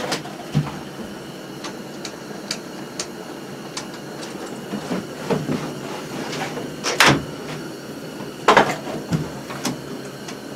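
Scattered knocks, bumps and clicks of people moving about and handling things inside a small wooden hunting blind, over a steady low hiss. The loudest knocks come about seven and eight and a half seconds in.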